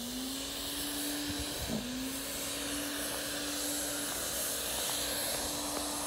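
A motor running steadily, its hum holding one pitch with a brief dip about a second and a half in, over a steady hiss.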